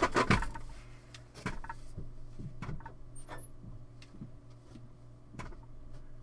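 Scattered knocks and clicks of someone moving about and handling things, loudest in the first second, over a steady low hum.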